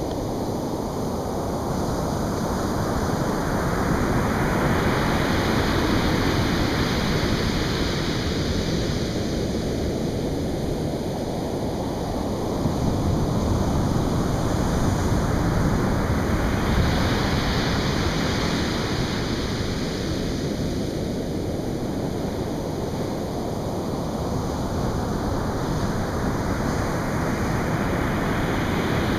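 Atlantic Ocean surf breaking on the beach: a continuous roar that swells and ebbs as each wave comes in, with a few slow surges several seconds apart.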